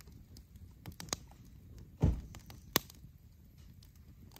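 Wood campfire burning with a low background hiss and a few sharp crackles and pops, two louder pops about two seconds in and just under three seconds in.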